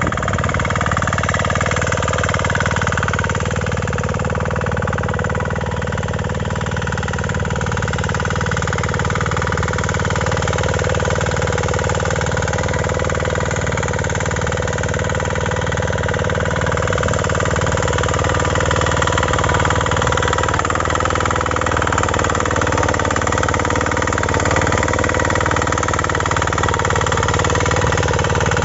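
Engine of a KK-CI300D 6 hp power weeder running steadily under load as its tines till the soil between crop rows.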